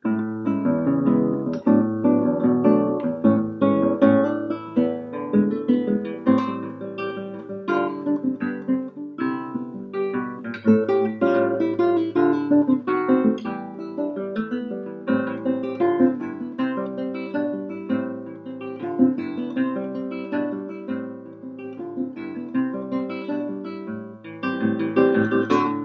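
Solo nylon-string classical guitar played with the fingers: a steady flow of plucked notes over a bass line.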